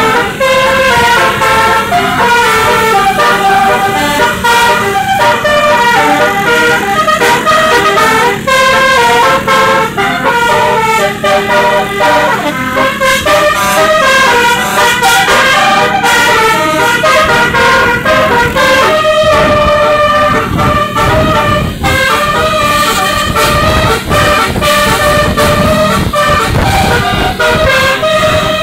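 Basuri telolet musical horn on a bus playing a running melody, the horn notes stepping rapidly from pitch to pitch without a break. A bus engine's rumble comes up beneath it in the second half.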